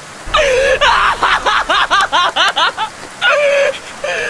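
Shiba Inu screaming in protest while its nails are clipped: a long cry, then a fast run of short rising-and-falling yelps, about five a second, then more long cries.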